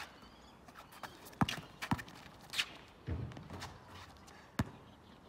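Basketball bouncing on an outdoor asphalt court: two bounces half a second apart about a second and a half in, another near the end, and a softer thud in the middle.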